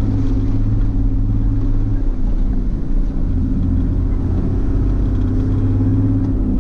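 Toyota Land Cruiser's engine running steadily as the 4x4 drives: a loud, even low drone with no speech.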